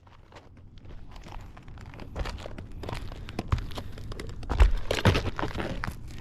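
Irregular crackling, scraping and thumps of roof shingles being handled and pulled up by hand, with the loudest knocks a little past the middle.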